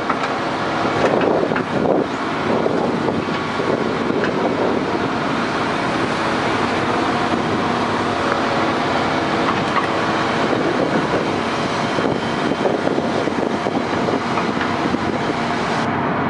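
Diesel engines of an excavator and a crawler dozer running steadily under load, a dense mechanical din with rougher, uneven surges in the first few seconds.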